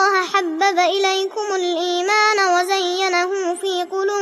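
A young girl's voice chanting Quranic recitation in the melodic, drawn-out style, holding long high notes with wavering ornamental turns in pitch.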